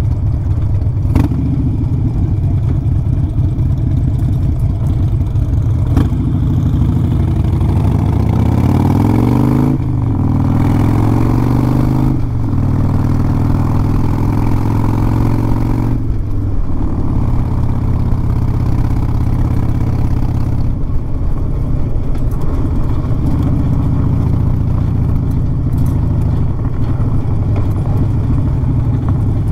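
Stage 4 Harley-Davidson V-twin motorcycle engine running under way. It revs up for a few seconds, drops in pitch at a gear change about ten seconds in, shifts again shortly after, and dips in revs around sixteen seconds before holding a steady cruise.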